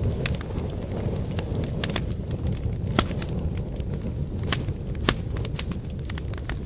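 Wood campfire burning: a steady low rumble of flames under frequent sharp crackles and pops, with two louder pops about three and five seconds in.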